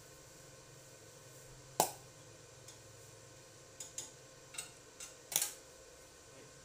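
Metal parts and tools being handled on a workbench: one sharp knock about two seconds in, then a quicker run of five or six lighter clinks in the second half, over a faint steady low hum.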